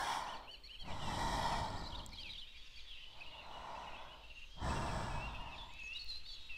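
A person breathing noisily in and out through the mouth, slow rhythmic breaths about every one and a half to two seconds.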